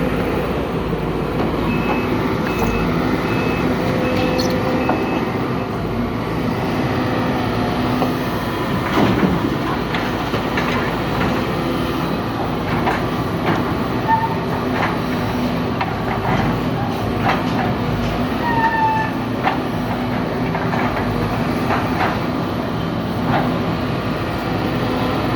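Excavator's diesel engine running steadily under work, with scattered metallic clanks and knocks. A repeated high beeping sounds for a few seconds near the start.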